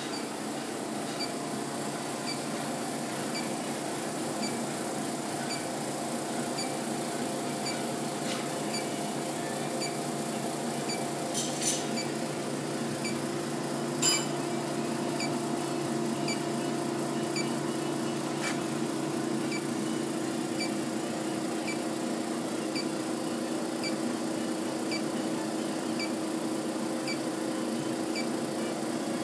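Induction heater running while a 3/4-inch mild steel bar heats to forging temperature in its copper coil. It gives a steady hum with faint ticking about once a second, and two sharp clicks near the middle, the second louder.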